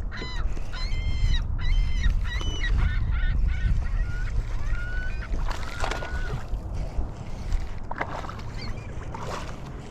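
A string of short, honking bird calls, bunched in the first few seconds with a few more later, over a steady low rumble of wind and water.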